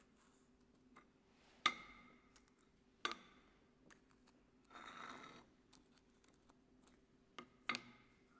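Light metallic clinks and taps as small steel dies and a tealight in its aluminium cup are picked up and set down on a perforated steel plate, with a short scrape about five seconds in and two clinks close together near the end.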